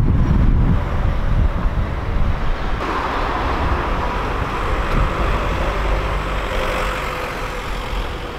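Outdoor street noise: wind rumbling on the microphone with a steady hum of road traffic. The background changes about three seconds in, when the picture cuts to a second street.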